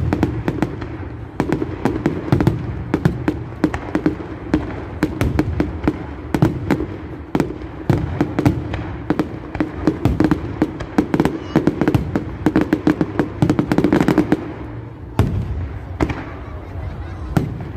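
Aerial fireworks going off in quick succession: a dense run of sharp bangs and crackles that thins out after about fifteen seconds, with a last single loud bang.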